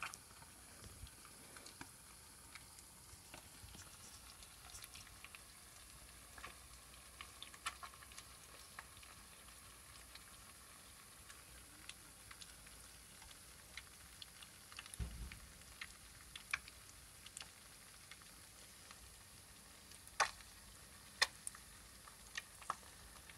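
Eggs frying in butter in a copper pan over a low wood fire: a faint steady sizzle with scattered small pops and crackles, a few sharper pops near the end.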